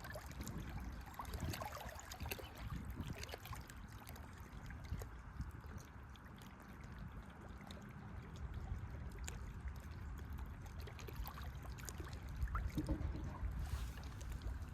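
Lake water lapping gently at the bank, with a low rumble of wind on the microphone and a few light clicks.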